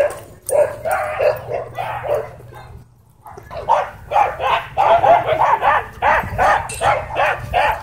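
Dog barking over and over, a few barks a second, stopping briefly about three seconds in and then starting up again, faster and louder.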